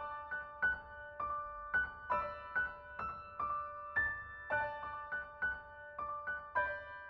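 Solo piano playing a gentle melody of single high notes, about three a second, each struck and left to ring and fade.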